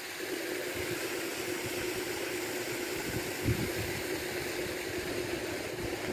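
Steady hum of a fishpond paddlewheel aerator's motor running, with occasional gusts of wind on the microphone.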